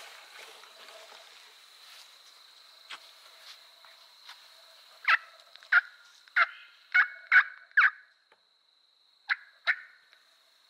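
Turkey yelping in a series of short calls. About halfway in come six calls half a second apart, and after a short gap two more follow near the end.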